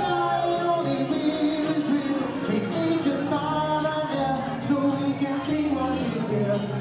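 Male vocal group singing live into microphones in close harmony, several voices holding notes at once over a steady beat, heard from the audience in a hall.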